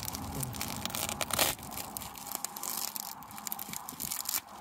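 Propolis-glued beehive parts being pried and scraped apart: a terrible noise of irregular cracking and tearing, loudest about a second and a half in, then fainter crackling.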